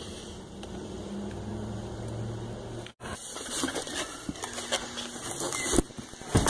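Handling noise from a walking, hand-held recording: rustling, clicks and footsteps, with a few heavier thumps near the end. Before an abrupt cut about three seconds in, a steady low hum.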